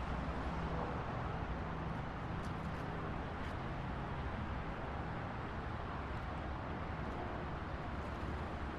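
Busy city street traffic: a steady rumble of passing cars and engines.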